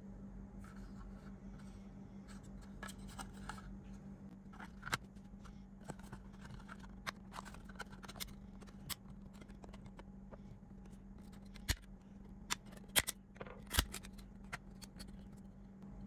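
A 2.5-inch SSD's casing handled and pried apart by hand: small scattered clicks, taps and scrapes, with a run of sharper snapping clicks about twelve to fourteen seconds in as the case comes open. A faint steady hum sits underneath.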